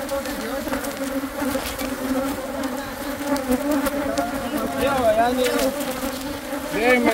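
A dense mass of honeybees buzzing around an opened hive: a loud, steady hum whose pitch wavers. The colony is disturbed by the frames being lifted out and is stinging the beekeepers.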